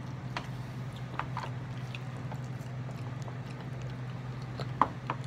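Quiet eating sounds: scattered faint clicks of a metal fork against a plastic bowl and chewing, with two sharper taps near the end, over a steady low hum.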